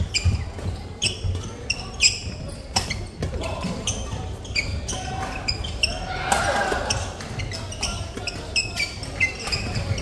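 Badminton rackets striking a shuttlecock, sharp cracks at irregular intervals, mixed with short squeaks of court shoes on a hardwood sports floor, with hits from play on other courts in the same hall.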